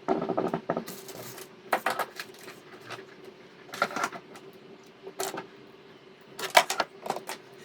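Packaging being handled during an unboxing: a few short bursts of rustling and clicking over a faint steady hum.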